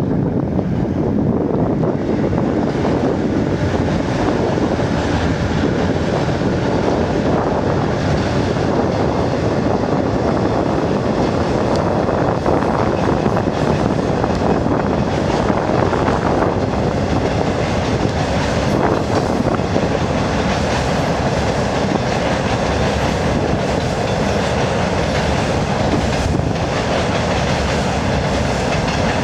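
Passenger train rolling steadily across a railway bridge, its coaches' wheels clicking over the rail joints, with a faint squeal from the wheels.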